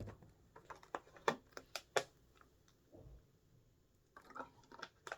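Faint, irregular clicks and light taps in two clusters, with a soft low thump about three seconds in.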